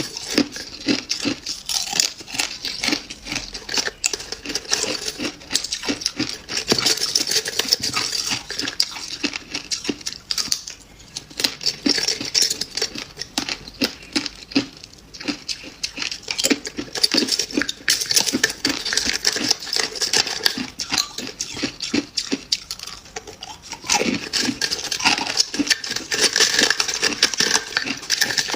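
Freezer frost being crunched and chewed close to the microphone: a dense run of crisp crackles with a couple of brief lulls.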